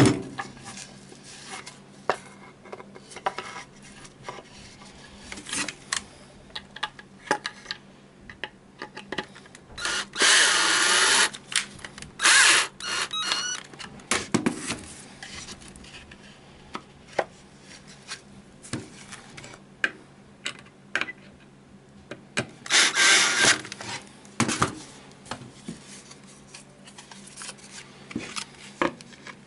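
Cordless drill running in three short bursts: the longest about ten seconds in, a shorter one a couple of seconds later, and a third about twenty-three seconds in. Between them, scattered knocks and clatter of handling tools on the wooden board.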